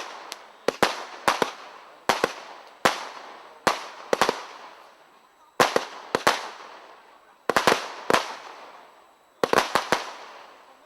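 Category F2 consumer fireworks going off: sharp bangs in quick clusters of two to five, roughly every one to two seconds, each cluster trailing off in a fading hiss and crackle.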